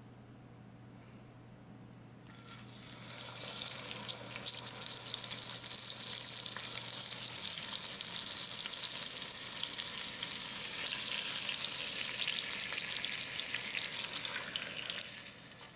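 Raw chicken pieces sizzling as they are laid into hot olive oil and butter in a Dutch oven to brown. The sizzle starts about two and a half seconds in, stays loud and even, and cuts off abruptly shortly before the end.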